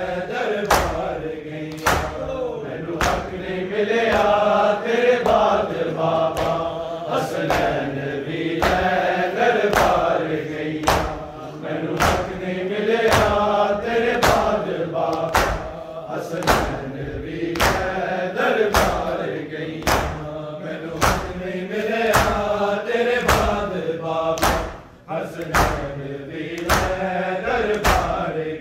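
Male voices chanting a noha, a Shia lament for Imam Hussain, over mourners striking their bare chests in matam. The chest-beats land together as sharp slaps about once a second.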